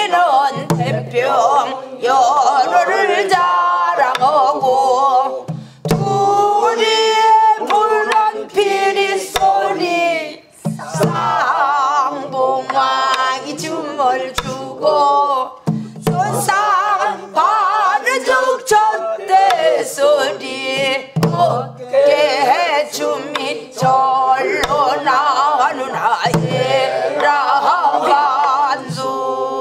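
A woman singing a Namdo folk song (southwestern Korean minyo) in a wavering, ornamented voice, keeping the beat herself with a stick on a buk barrel drum. The singing breaks off briefly a couple of times for breath.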